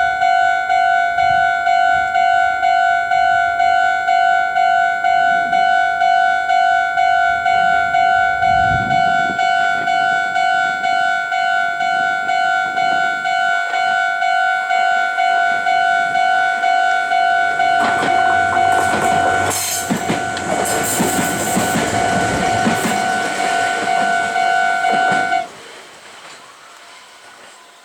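Japanese level-crossing warning bell ringing, a loud electronic ding repeated about one and a half times a second. About 18 seconds in, a Meitetsu 6800-series electric train runs through the crossing with its wheel and running noise, and the bell cuts off suddenly about 25 seconds in as the crossing clears.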